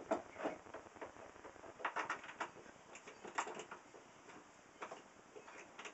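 Light wooden knocks and scrapes as an adjustable plywood fence is set and slid into place on a tilted plywood router table: a handful of short, separate clunks a second or so apart.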